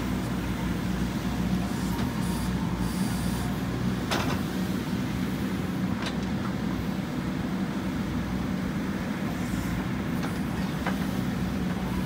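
JCB backhoe loader's diesel engine running steadily under load as the machine pushes soil, with a couple of faint short knocks about four and six seconds in.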